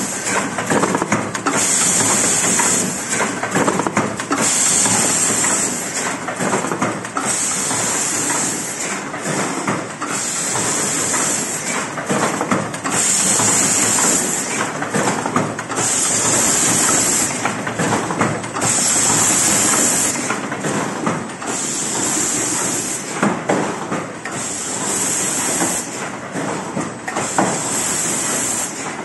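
Automatic paint brush ferrule-making machinery running with a steady mechanical clatter. A hiss lasting about a second recurs roughly every three seconds.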